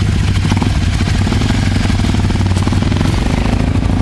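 Motorcycle engine idling close by with a loud, steady, even rumble.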